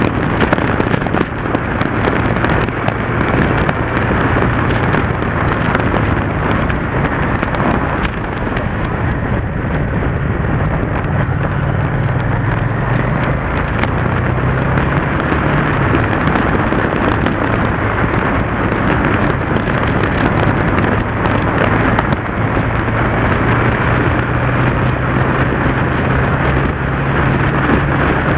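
Yamaha TDM parallel-twin motorcycle engine running under way on the road, its low note rising and falling a few times with throttle and speed, under heavy wind rush over the camera microphone.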